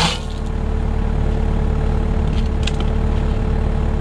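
Kubota KX057-4 excavator's diesel engine idling steadily, with a short scrape at the start and a fainter one near three seconds.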